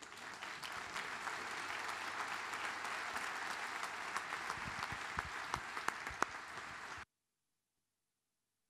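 Large seated audience applauding steadily. The applause cuts off abruptly about seven seconds in.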